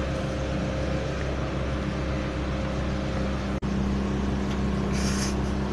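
A steady low motor hum with several held tones, cutting out for an instant about three and a half seconds in.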